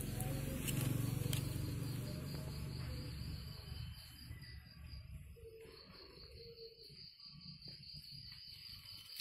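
A high-pitched insect chirp pulsing steadily several times a second, over a low rumble that is loudest for the first three seconds and then fades.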